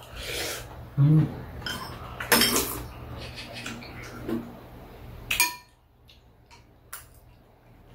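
Metal spoons and chopsticks clinking and scraping against ceramic bowls as two people eat, with a few sharper clinks, the loudest about a second in, over a low background hum that cuts out near the end.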